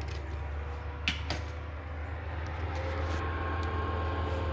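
Wood chipper running with a steady low drone; about two-thirds of the way in, a thin whining tone comes in over it. Two sharp clicks a little after a second in.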